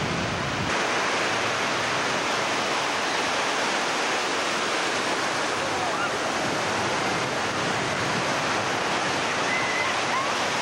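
Ocean surf breaking and washing in, a steady, loud hiss of rushing water.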